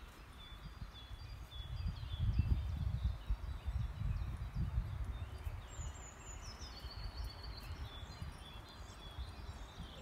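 Birds singing: short high chirps throughout, a quick descending run of notes about six seconds in, then a brief trill. Under them a low rumble of wind on the microphone, strongest in the first half.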